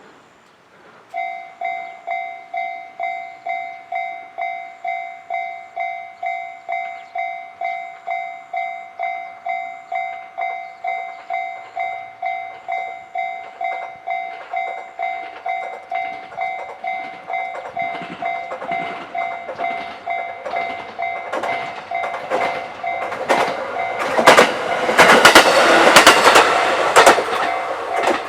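Japanese railway level-crossing alarm ringing its steady two-tone electronic ding-ding, starting about a second in. A train then approaches and passes over the crossing, its wheels clattering loudly over the rail joints near the end while the alarm keeps ringing.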